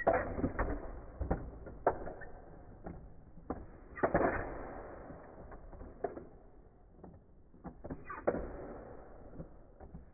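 Plastic clicking and clattering from push-button toy fighting bases as the red buttons are pressed and the Lego big-figures swing and knock together. There are many sharp clicks, with louder clattering flurries near the start, about four seconds in and about eight seconds in.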